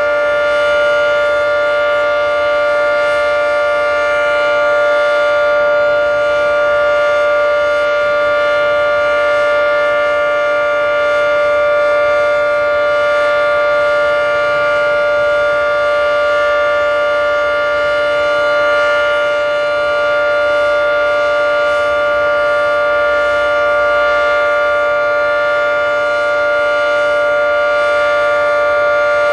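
Federal Signal 3T22 three-tone electromechanical outdoor warning siren sounding a steady alert: a held chord of several fixed tones with no rise or fall in pitch. Its loudness swells and fades slightly every few seconds as the rotating siren head turns.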